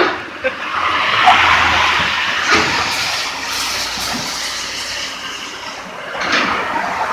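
Building demolition noise: a loud rushing, scraping racket of debris being torn and falling, with knocks about two and a half seconds in and again near the end.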